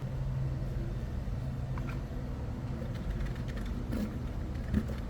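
Mountain bike with a Hope floating disc rotor on its front wheel, run for a brake sound test: a steady low rumble with a few faint clicks, and no rotor rub or squeal, showing the spacer-washer mount runs clean.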